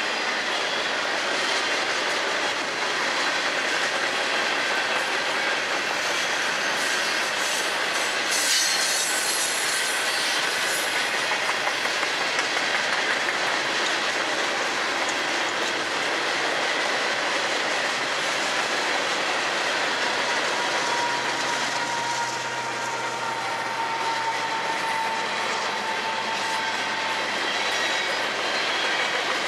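Intermodal freight train of containers and trailers rolling past at speed: a steady rumble and clatter of wheels on rail joints, with a brief sharper clank just over a quarter of the way through. A faint, slightly falling wheel squeal comes in about two-thirds of the way through.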